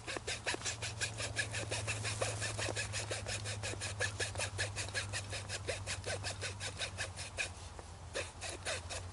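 Quick, even back-and-forth strokes of a fine-toothed (18 tpi) hacksaw blade sawing through wood, about four to five strokes a second. The strokes pause briefly near the end, then start again, over a steady low hum.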